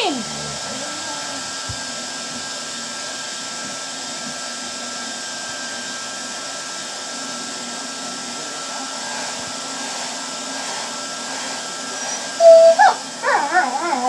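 Hand-held hair dryer running steadily, a whir with a thin high hum. About twelve seconds in, the puppy breaks in with a run of whines and yelps at it.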